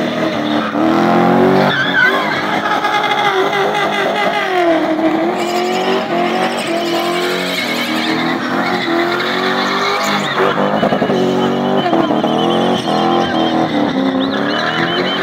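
V8-engined BMW E30 spinning: the engine is held at high revs that rise and dip, over continuous tyre squeal as the car does donuts.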